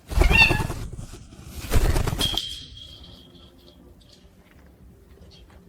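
A parrot flapping its wings in two bursts about a second and a half apart, followed by a short high whistled note.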